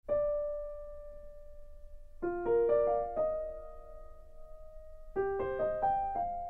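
Slow, gentle solo piano music: a single note held for about two seconds, then two short groups of mostly rising notes, each note left to ring.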